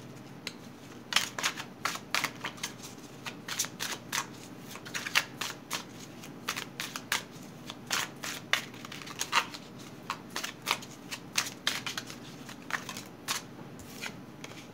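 A deck of tarot cards being shuffled by hand: a steady run of short, sharp card snaps and slaps, several a second with brief pauses.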